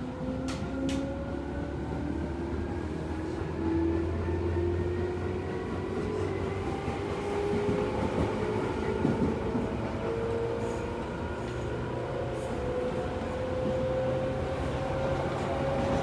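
Electric commuter train accelerating: the traction motors' whine rises slowly and steadily in pitch over a steady low running rumble, heard from aboard the train.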